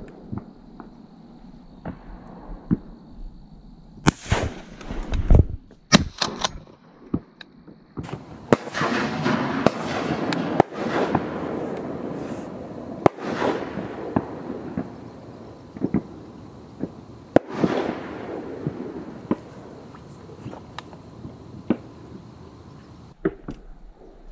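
Shotguns firing across the marsh at the waterfowl opener: a string of sharp shots at irregular intervals, some close and loud and many fainter and more distant. A rough rushing noise swells under the shots through the middle.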